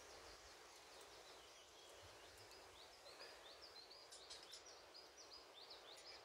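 Faint songbird singing: a long run of quick, high chirping notes, with a few light clicks about four seconds in.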